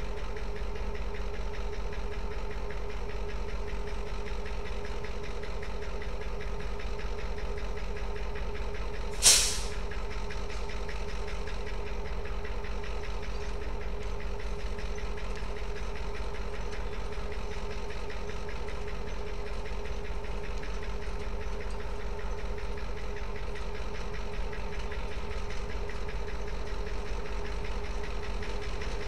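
Diesel locomotives idling with a steady hum and low rumble. About nine seconds in comes one short, loud, sharp hiss.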